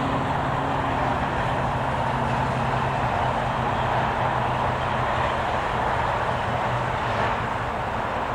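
Steady highway traffic noise: a continuous rush of tyres and engines from vehicles on the motorway, with a low engine hum under it.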